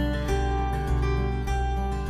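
Background music: plucked strings over a bass line, with notes changing about every half second.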